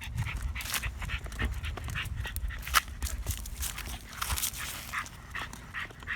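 A dog on a leash walk, its breathing and sniffing heard over irregular small clicks and scuffs, with a low rumble underneath.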